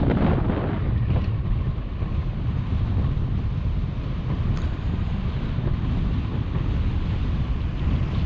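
Wind buffeting the microphone: a steady, low rumbling noise with no breaks.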